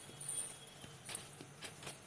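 A few light clicks and taps of kitchen utensils being handled, clustered in the second half, over a faint steady hum.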